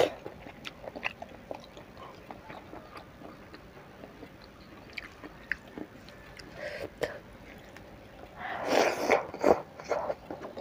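Close-up mouth sounds of a person eating by hand: chewing a mouthful of stir-fried squid and rice, with small wet clicks and smacks. A louder stretch of mouth noise comes about nine seconds in.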